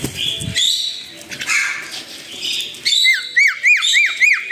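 Crested mynas giving harsh squawking calls. About three seconds in, a myna whistles a quick run of five rising-and-falling notes.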